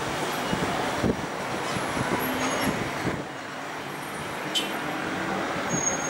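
Steady city traffic noise: a mix of engines and passing vehicles, with a brief high-pitched sound about four and a half seconds in.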